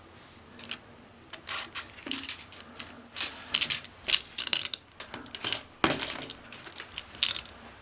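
Grey plastic drain pipe being handled and pushed into a plastic elbow fitting: a run of clicks, knocks and scraping rubs, busiest in the second half.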